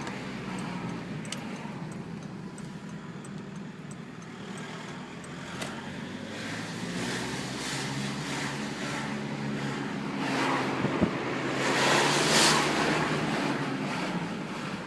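Volkswagen Passat TDI diesel running with a faint whistle over the engine note, which is the whistle the owner is showing. A rushing noise swells and grows louder about ten to thirteen seconds in.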